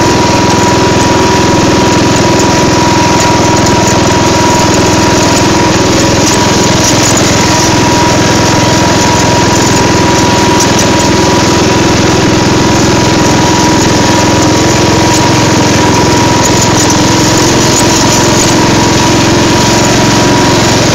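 Craftsman riding lawn mower engine running steadily as it is driven, loud and close, with a constant high whine over the engine.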